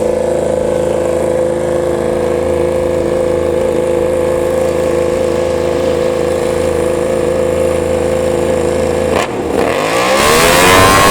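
MotoGP racing motorcycle engine running at a steady high idle, then dipping briefly and revving up sharply near the end, rising in pitch and getting louder.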